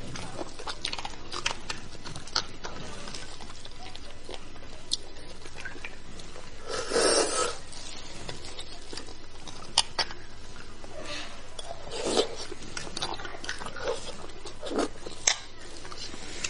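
Close-miked eating of beef bone marrow: scattered wet mouth clicks and smacks, with one longer, louder sound about seven seconds in and a few sharp clicks later.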